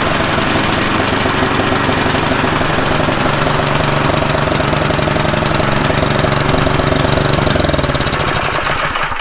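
Snowblower engine running steadily on a test run after its carburetor was cleaned and the machine reassembled, then shut off near the end and winding down to a stop.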